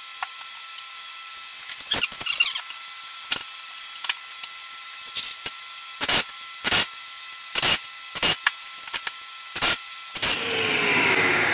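Irregular sharp knocks and clicks from handling wood parts and tools on a workbench, over a steady faint hum. About ten seconds in, the sound changes abruptly to a louder, noisier sound with a falling whine.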